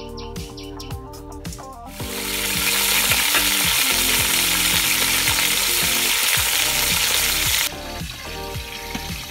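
Whole raw chicken frying in hot oil in a pot: a loud, steady sizzling hiss that starts about two seconds in and cuts off abruptly near the end. Background music plays underneath.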